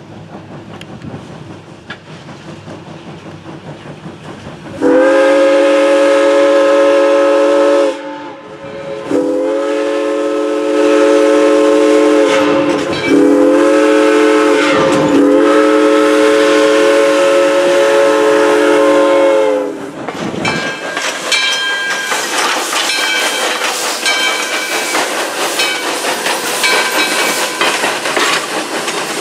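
Arcade & Attica No. 18, an Alco 2-8-0 Consolidation steam locomotive, blowing its multi-note steam whistle in the grade-crossing signal: long, long, short, long. After that the train's wheels and passenger cars clatter past close by.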